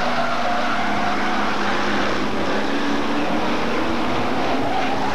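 Several Hotstox oval-racing cars running round the track together, their engines making a steady, continuous noise whose pitch rises and falls slightly as they lap.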